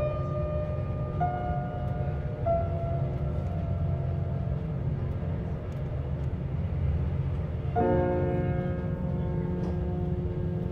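Calm instrumental background music with held notes, a fuller chord entering about eight seconds in, over the steady low rumble of a moving train heard from inside the carriage.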